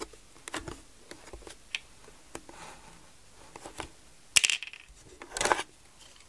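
Hard plastic Spirograph pieces clicking lightly, then two louder clattering handling noises about a second apart near the end as the gear wheel and ring template are lifted off the paper.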